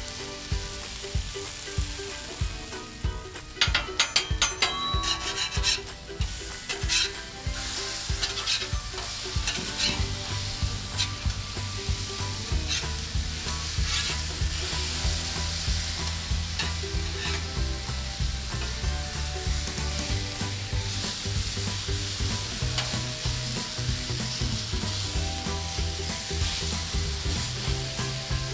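Marinated chicken breasts sizzling on a hot 36-inch Blackstone flat-top griddle, with metal spatulas scraping and clicking on the steel cooktop as the pieces are moved and flipped. The clatter is busiest about three to seven seconds in.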